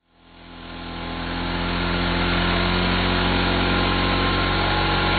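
Gas chainsaw running at speed while cutting through a log. It fades up over the first couple of seconds, then holds steady.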